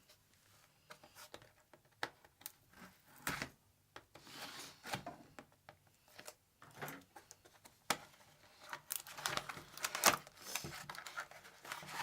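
Tool packaging being opened by hand: scattered clicks and handling knocks with stretches of tearing and crinkling, busier in the last few seconds.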